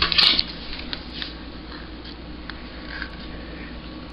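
Brief clatter of a utensil against a dish near the start, then a few faint small clicks over a low steady room hum.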